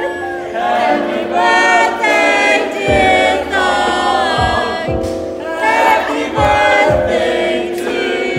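A group of young men singing together in harmony, with a low thudding beat under the voices from about three seconds in.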